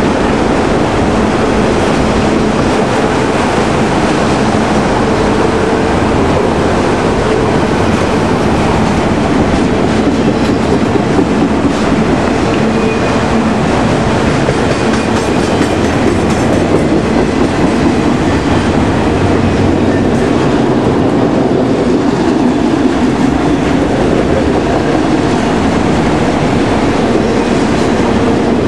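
Freight train of autorack cars rolling past at speed, the steel wheels on the rails and the rattling car bodies making a loud, steady noise.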